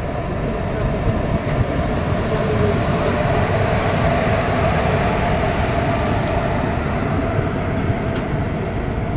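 Garib Rath Express coaches running, heard from on board: a steady rumble of wheels on rail with a few faint clicks.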